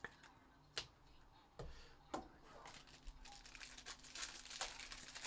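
A black foil card pouch crinkling and crackling as it is handled and opened. A few separate sharp clicks come in the first two seconds, then the crinkling grows denser.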